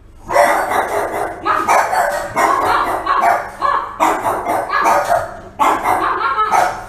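French Bulldog barking in a run of repeated, drawn-out barks with short pauses between them.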